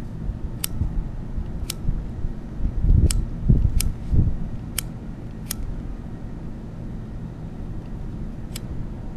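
Low rumble of wind and handling on the microphone, strongest around three to four seconds in. About seven short, sharp high clicks are scattered through it.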